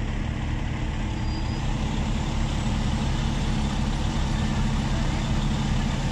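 Parked fire truck's engine idling steadily, a low hum that grows a little louder about two seconds in.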